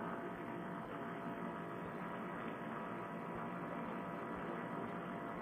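Faint, steady drone of a paratrike's engine in flight, heard muffled through a headset microphone, with a few steady tones in it and no change in pitch.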